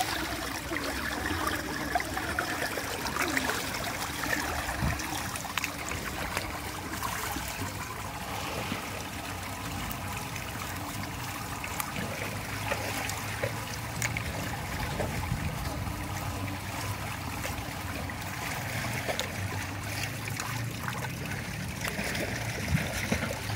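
Swimming pool water trickling and lapping steadily at the edge, with small scattered splashes.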